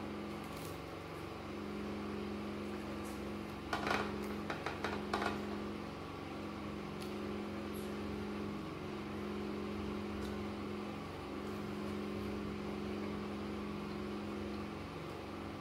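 A steady mechanical hum, with a quick run of sharp crackles about four seconds in as smoked fish is torn apart by hand.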